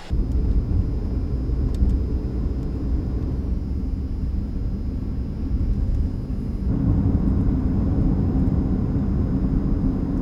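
Car running on the road: a steady low engine and road rumble, growing a little fuller about two-thirds of the way through.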